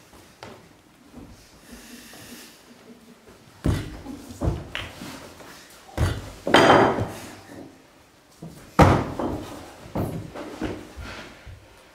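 Irregular heavy thuds and knocks, about seven in all, the loudest about six and a half and nine seconds in, the one at six and a half seconds drawn out and rougher than the rest.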